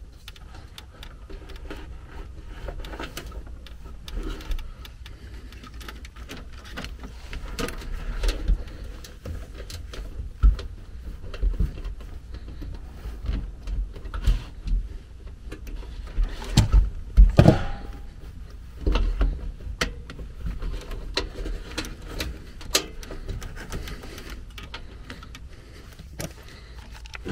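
Handling noises from a furnace blower compartment: scattered clicks, knocks and metal scrapes as the sheet-metal blower housing and its wiring are worked by hand, with a cluster of louder clunks about two-thirds of the way through.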